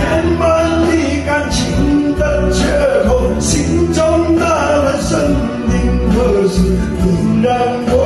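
A man singing through a karaoke microphone over a pop backing track with a steady beat.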